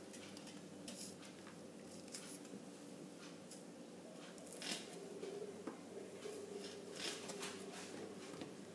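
Faint, scattered soft scrapes and squishes of seeds being removed from cut bitter gourd pieces, with a handful of short strokes spread out.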